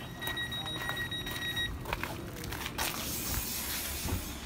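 Passenger train door's electronic warning tone, one steady high beep held for about a second and a half, followed by a hiss near the end.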